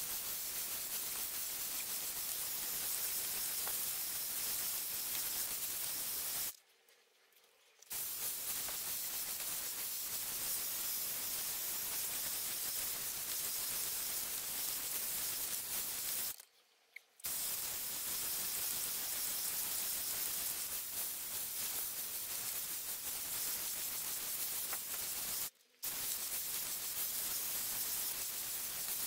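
Dyson Airwrap hair styler blowing hot air through its smoothing brush attachment while drying hair: a steady, high hiss of rushing air. It drops out three times for a moment: about a quarter of the way in, just past halfway and near the end.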